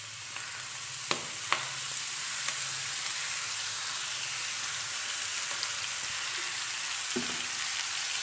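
Marinated chicken pieces sizzling in a pan as sunflower oil is poured over them. The sizzle builds over the first second or so and then holds steady, with two sharp ticks about a second in.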